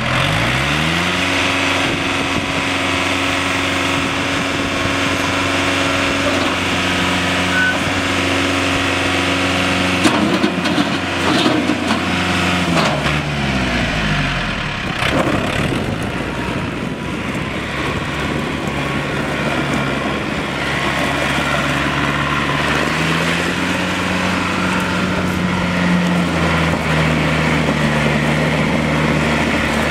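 John Deere 970 compact tractor's three-cylinder diesel engine catching and revving up in the first second, then running steadily. Between about ten and fourteen seconds in, its speed wavers and then drops while the loader bucket is raised, and it then runs on, rising in pitch again around 23 seconds in as the tractor drives.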